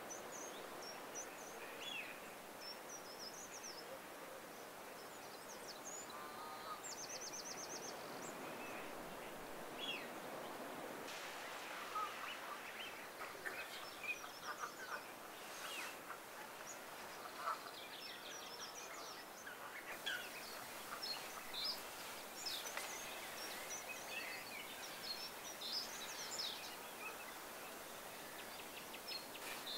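Wild birds calling and singing: many short high chirps and a few quick trills scattered throughout, over a steady hiss of outdoor background noise.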